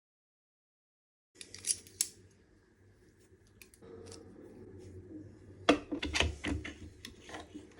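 Small metal engine parts being handled and fitted on a bench. After a second and a half of silence there are two sharp clicks, then faint scraping, then a run of light clicks and taps near the end.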